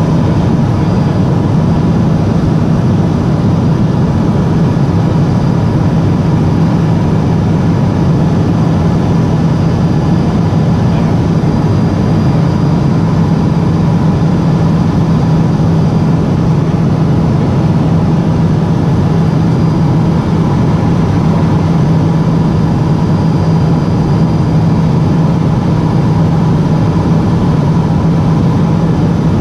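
Cabin noise of a Cessna P210 Silver Eagle's Rolls-Royce turboprop in flight, heard from inside the cockpit: a loud, unchanging low drone with a few thin steady tones above it.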